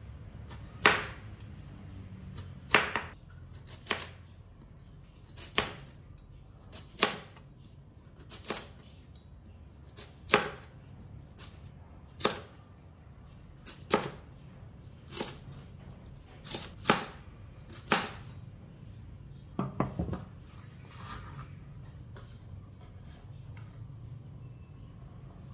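A cleaver-style kitchen knife slicing a lotus root into rounds on a plastic cutting board: a sharp knock each time the blade goes through and hits the board, about fifteen cuts at a steady pace of one every second or so, stopping about twenty seconds in.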